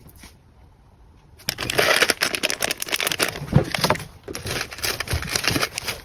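Crinkling and rustling of plastic packaging being handled, starting about a second and a half in as a dense run of sharp crackles.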